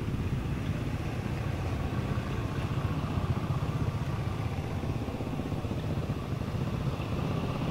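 A steady low engine rumble, as of a motor vehicle running nearby.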